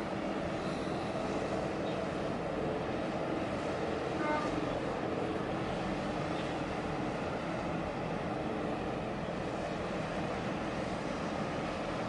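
Steady low rumble and drone of a large container ship passing close by, over wind and water noise, with a short faint chirp about four seconds in.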